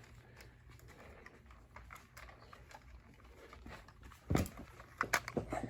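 Faint tapping and handling noise of toys being moved about, with a thump about four seconds in and a few sharp clicks near the end.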